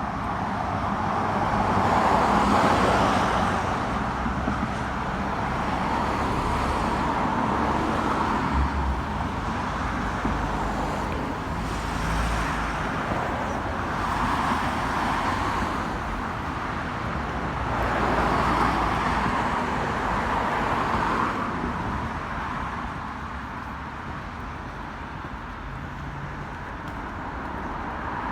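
City street traffic: cars passing one after another, each swelling and fading as it goes by, over a low steady rumble.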